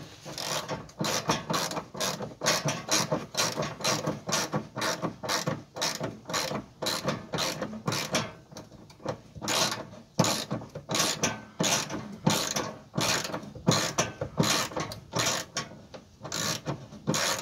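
Hand socket ratchet clicking in quick runs, with short pauses, as a fuel-tank strap bolt is loosened.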